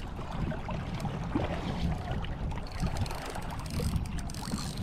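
Wind buffeting the microphone with a steady low rumble, over water lapping against a rocky shoreline.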